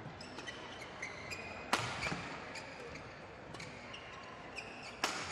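Badminton doubles rally: rackets striking the shuttlecock with sharp cracks, the two loudest about two seconds in and near the end, among short high squeaks of players' shoes on the court mat.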